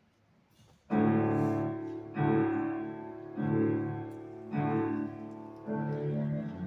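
A grand piano and violin begin playing about a second in: five heavy piano chords struck about every second and a quarter, each fading before the next, with the violin sounding along.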